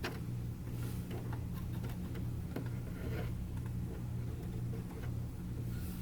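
Steady low hum with faint, scattered ticks and light handling clicks from hands working on car parts.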